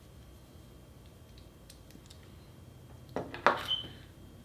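Low room tone, then about three seconds in a short cluster of sharp clicks and knocks from small hard gadgets being handled by hand, followed by a brief high tone.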